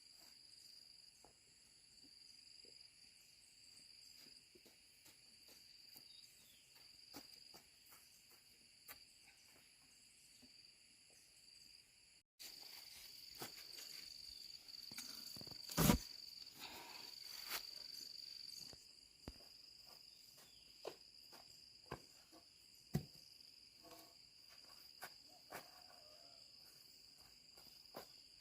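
Insects chirring steadily in a high, thin tone, with scattered light taps and clicks and one louder knock about two-thirds of the way through.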